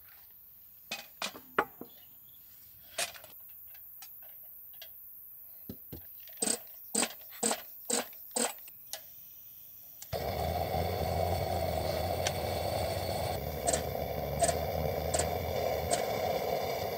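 Light clicks and taps of small hard objects being handled. About ten seconds in, a steady rushing noise starts suddenly, with a few more clicks over it.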